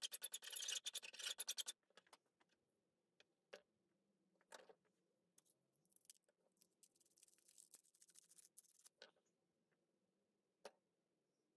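Rapid, regular scraping strokes, several a second, on the old wooden handle of an antique hand sickle, stopping abruptly about a second and a half in. Then scattered small knocks, and a few seconds of softer rasping while the handle is twisted on the rusted tang.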